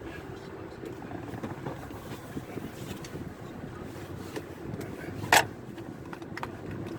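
Car on the move, with steady engine and road noise and a faint low hum. A single sharp knock sounds a little over five seconds in.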